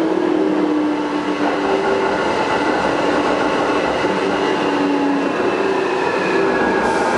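Taipei Metro Wenhu line Bombardier rubber-tyred train running at speed: a steady running noise with whining tones that drift slightly in pitch and come and go. This is the abnormal running noise that these Bombardier trains develop after long service.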